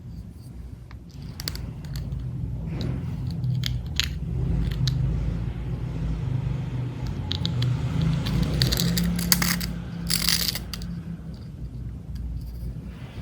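Small hard objects being handled: scattered clicks, clinks and light scrapes, busiest about two-thirds of the way through, over a steady low hum.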